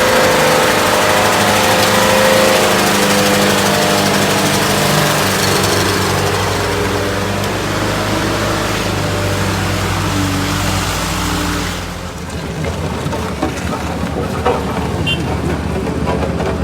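Motor vehicle engine running steadily and loudly. About twelve seconds in the sound drops away abruptly, leaving a quieter, lower engine sound with a few sharp knocks.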